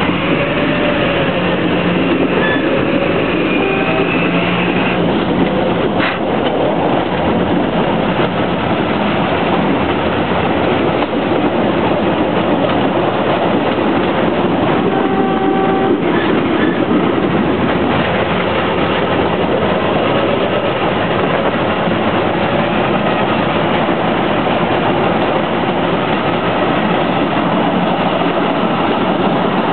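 A 1932 Campagne rail speeder (draisine) with a J7 diesel engine, running steadily along the track, heard from inside its open cab: engine noise and the rattle of the wheels on the rails, with a couple of sharp clicks.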